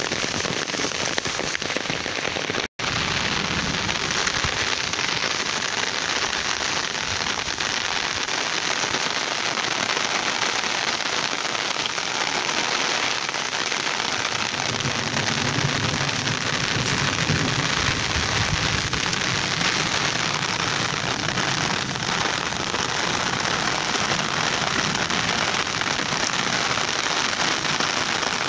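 Steady rain falling on a ploughed, waterlogged field, an even dense hiss of drops on wet soil and puddles. The sound drops out for an instant about three seconds in.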